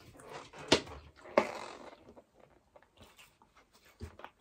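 Close-up eating and handling noise at a meal table: a rustling noise over the first two seconds with two sharp clicks in it, then a few fainter clicks and a soft thump near the end.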